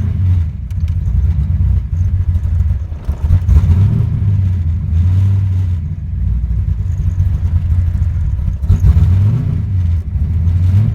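331 stroker small-block Ford V8 in a Fox-body Mustang running just after a startup, with a few brief rises and falls in engine speed, about three and a half and nine seconds in.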